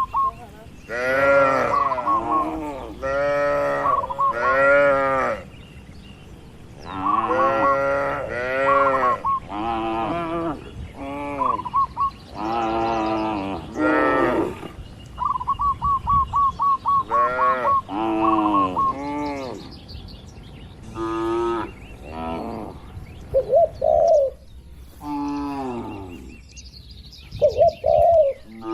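Cattle mooing over and over, a steady run of short calls that rise and fall in pitch, one after another. Between the moos a bird chirps in quick, rapid trains of short high notes.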